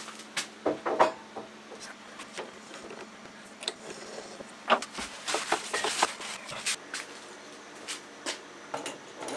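Scattered metal clicks and knocks as a four-jaw chuck is handled and fitted onto the spindle of a Myford lathe, with a quick cluster of knocks about five to six and a half seconds in.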